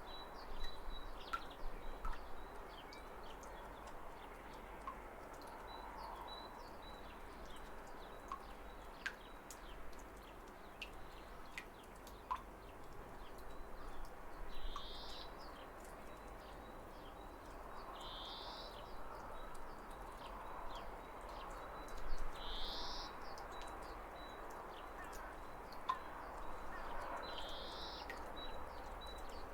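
Steady rush of falling water with birds calling over it: faint high chirps and clicks throughout. In the second half one bird gives a short rising call four times, about every four seconds.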